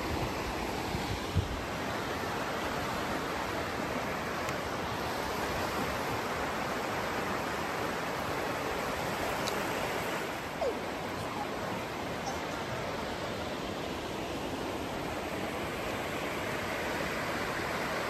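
Creek rushing over rocks in shallow rapids: a steady, even rush of water.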